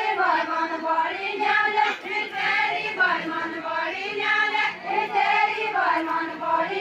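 Women's voices singing a Deuda folk song together, without instruments, in long drawn-out phrases.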